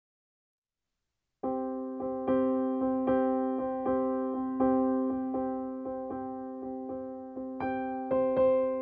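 Background music: a piano playing a steady run of repeated, decaying notes, about two to three a second, starting about a second and a half in. Higher notes join near the end.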